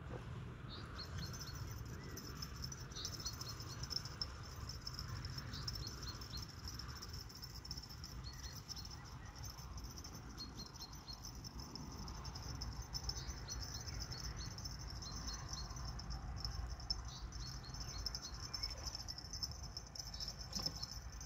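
Faint outdoor ambience: a low rumble, a steady high hiss and short high chirps that come in little groups of two to four every second or two.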